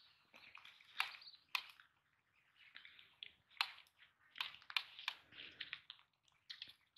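Faint, irregular rustling and crackling clicks of footsteps and a bamboo rod brushing through dry grass and bankside brush, with several sharper snaps.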